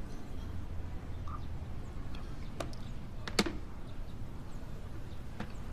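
Quiet room tone with a few sharp, short clinks of tableware at a dining table, the loudest about three and a half seconds in.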